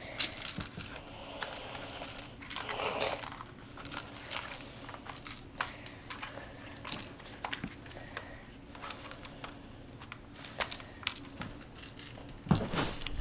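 Rustling and scattered clicks and knocks of hands rummaging in a backpack to get out a pistol, with a louder rustle near the end.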